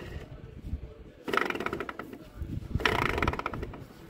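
Worn tractor clutch release bearing spun by hand on the gearbox input shaft, giving two rough, rattling runs of about a second each. The rattle is the sign that the bearing is worn out and due for replacement.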